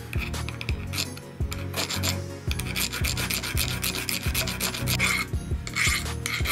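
Hand file rasping in repeated back-and-forth strokes across the head of a small slotted steel screw held against a vise. The strokes get longer and louder near the end.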